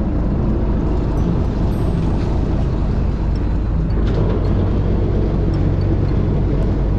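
Fishing boat's engine running steadily, a constant low hum under a wash of wind and water noise.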